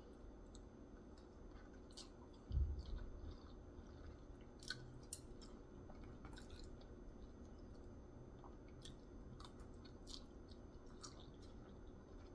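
Close-miked chewing of sushi, with small wet mouth clicks scattered throughout and a low thump about two and a half seconds in.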